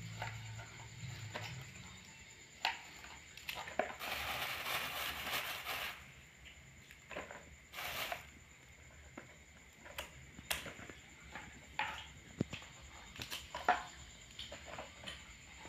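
Vegetable stems being cut by hand: scissors snipping long green stems into a plastic basin and a knife chopping on a plastic cutting board, heard as a scattered string of short snips and clicks, with a longer rustle of handling the greens about four to six seconds in.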